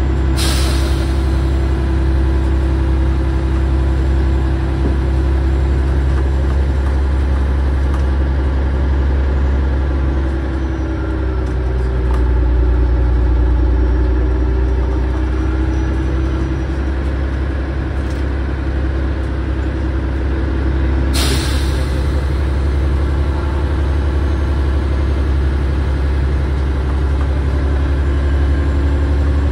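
Volvo Olympian double-decker bus heard from the lower deck while under way: its diesel engine and drivetrain give a steady low drone with slow changes in pitch, rising a little around the middle. Two short hisses of air cut in, about half a second in and again about 21 seconds in.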